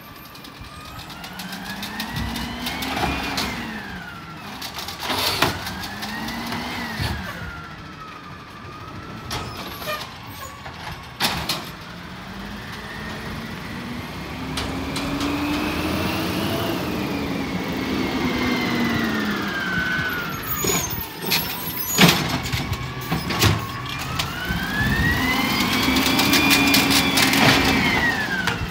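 Automated side-loader garbage truck's diesel engine revving up and down in several long swells as it drives the hydraulic arm and packer, growing louder as the truck comes closer. Several sharp metallic bangs and clunks from the arm and carts.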